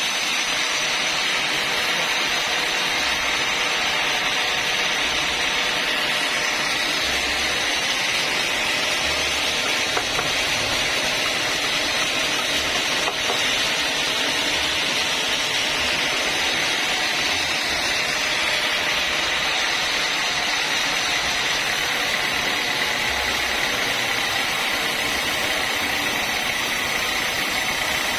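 Sawmill saw running steadily through a long lengthwise cut in timber, sawing it into planks, with an even, unbroken hiss.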